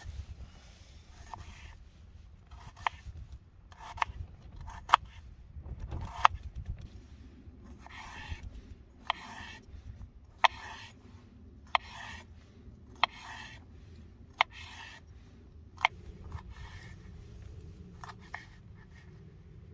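Wooden-handled folding knife slicing and chopping red onion and orange pepper on a wooden chopping board. Each stroke is a soft crunch through the vegetable ending in a sharp knock of the blade on the board, about one every second and a quarter.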